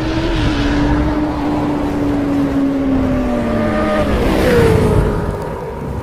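Sound effect of a sports motorcycle engine held at high revs over a deep rumble, its note sagging slowly and then dropping sharply about four and a half seconds in, as in a pass-by, before fading.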